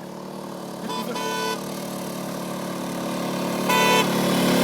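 Riding lawn mower's 12.5 hp engine running steadily and getting louder, with its fitted horn honked briefly about a second in and again near the end.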